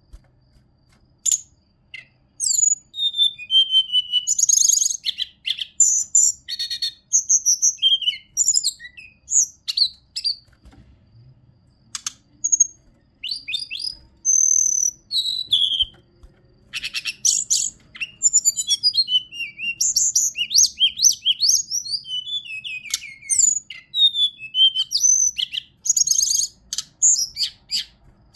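Hill blue flycatcher (Cyornis whitei) singing: a long, varied run of quick, high whistled and warbled phrases with sweeping notes, easing off briefly around ten seconds in.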